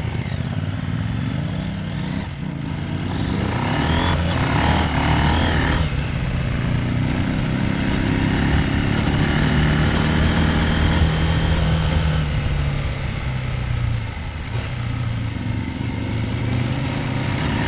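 Husqvarna Norden 901's parallel-twin motorcycle engine pulling away and running under throttle. The revs climb over the first few seconds, hold fairly steady, drop back about fourteen seconds in and climb again near the end.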